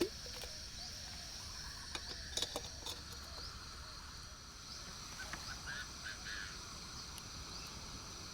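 Outdoor ambience: a steady high drone of insects with repeated short chirps, a few birds chirping briefly about five to six seconds in, and a few light clicks about two to three seconds in.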